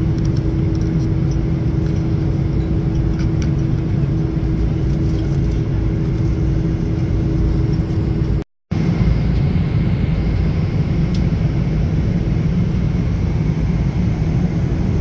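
Steady cabin noise of a Boeing 777-300ER in flight: a loud even rumble of engines and airflow with a steady low hum. It drops out for a moment about eight seconds in, then carries on with a faint steady high whine over the rumble.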